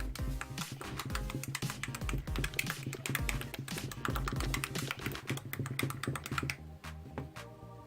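Wet, sticky slime being squished and kneaded by hand, giving a dense run of irregular clicks and pops that thins out near the end, over background electronic music.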